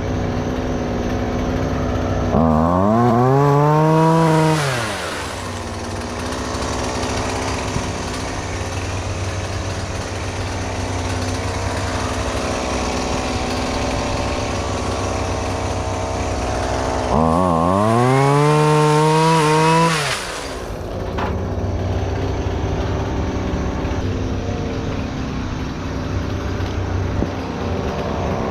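An engine running steadily, twice revved up sharply, held high for two to three seconds, then let back down.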